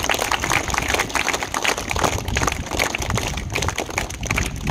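A crowd of schoolchildren clapping: dense, irregular applause with no pause.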